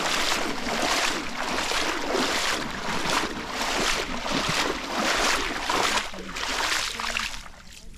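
Footsteps splashing through shallow lake water, close up, a splash about every half second; the splashing dies down near the end as the water thins out onto the sand.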